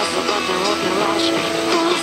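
Background music, a melodic song track with held and gliding notes.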